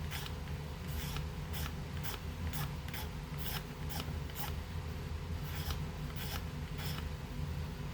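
Short scraping strokes of hand work on the edge of a part, about two a second at an uneven pace, as the edge is trimmed to meet its mate. A faint steady hum runs underneath.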